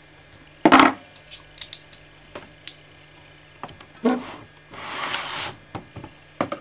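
Handling noises from an old white plastic Apple keyboard being moved on a desk: a sharp knock about a second in, scattered key and case clicks, and a short sliding scrape just past the middle as it is pushed into place, then light clicks as a small Torx screwdriver is set into one of its screws.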